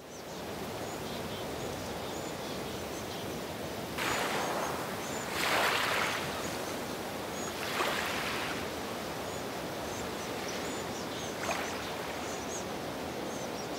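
Outdoor nature ambience fading in: a steady rushing background with short high chirps, and a few louder rushing swells about four, five and a half, eight and eleven and a half seconds in.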